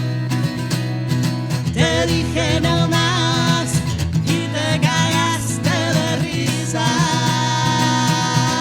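Live acoustic song: guitar accompaniment under held, wavering vocal notes without clear words.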